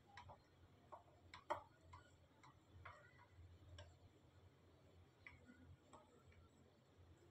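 Near silence with faint, irregular clicks of a knife blade touching the aluminium tray while cutting set barfi into squares.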